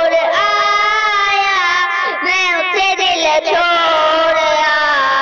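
A high, child-like voice singing long, drawn-out notes that bend up and down, part of a Hindi song.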